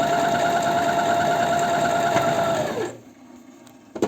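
Janome 509 sewing machine stitching a test seam at speed, its motor whine steady over a fast even needle rhythm, then slowing and stopping about three seconds in. A single sharp click near the end.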